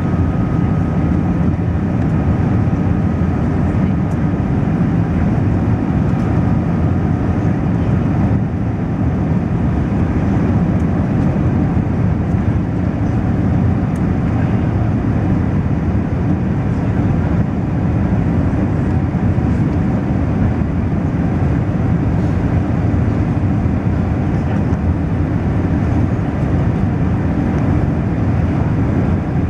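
Steady low rumble inside the passenger cabin of a four-engined Airbus A380 airliner, from its engines and the airflow around it.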